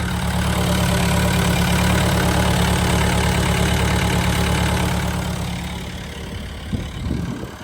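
Bobcat 825 skid steer's engine running steadily, fading away over the last two seconds or so.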